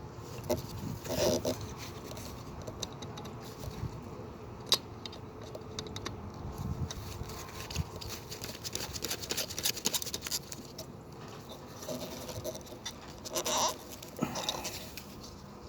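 Scattered small clicks and rustles of hand-wiring at a fire alarm pull station's terminals, with wires and a screwdriver being handled, and one sharp click about five seconds in. A few short pitched sounds come around one second in and again near the end.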